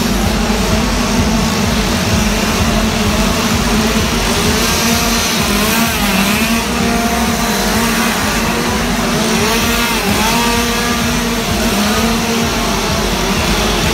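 Gas chainsaw engine running loud and close, revved up and down about five seconds in and again about ten seconds in.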